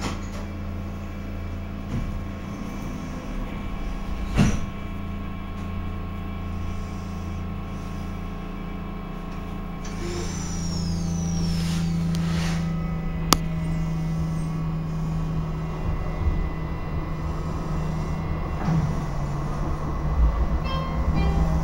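Interior of a Stadtbahn light-rail car standing at a stop, its on-board equipment giving a steady low hum with a sharp click a few seconds in. About halfway through a high gliding tone sounds and the hum grows stronger and steadier as the car starts to pull away, with another click soon after and a shift in the hum's pitch near the end.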